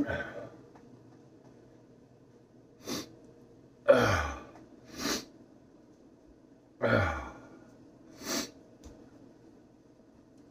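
A man breathing hard against the burn of a very hot sauce: short sharp breaths and two loud, sudden exhales about four and seven seconds in, each with a voiced sound that drops in pitch.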